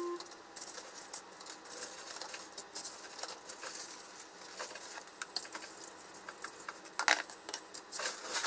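Kitchen handling sounds: aluminium foil crinkling and light irregular clicks and taps as salmon fillets are laid on the foil and worked with a wooden spoon, with a sharper click about seven seconds in.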